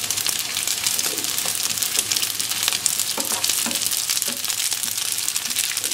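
Raw long-grain rice sizzling as it fries in hot oil with onion and spices, stirred and scraped around the pan with a wooden spoon in irregular strokes. The sizzle is a steady hiss.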